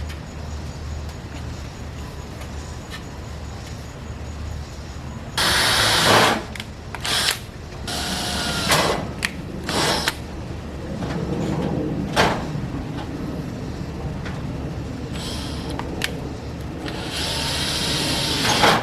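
Power drill running in several short bursts on metal roof panels, its motor whining up and down, with the last and longest burst near the end.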